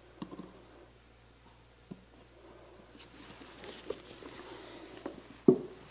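A plastic engine-oil bottle and funnel handled as the last of the oil is poured into an ATV engine: faint rustling and pouring, with a few light plastic knocks, the loudest near the end.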